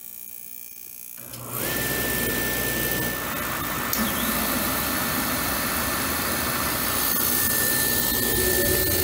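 Lanair XT300 waste oil heater's burner starting about a second in, when its thermostat terminals are jumpered to call for heat, then running with a steady rushing noise and a steady high whine as it fires on waste oil.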